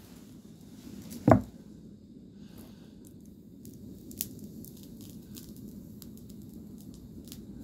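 A hot knife blade melting through a red wax pillar candle: faint scattered clicks and soft squishing over a low steady background rumble, with one single heavy thump about a second in, the loudest sound.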